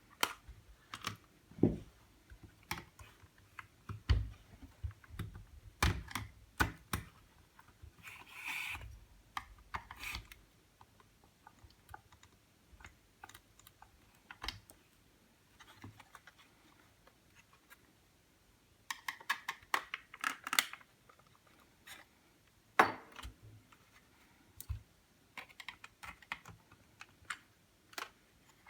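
Irregular small clicks, taps and scrapes of hands and small tools working on the plastic parts of a Peugeot 206 instrument cluster, with a short scrape about eight seconds in and a quick flurry of clicks around twenty seconds.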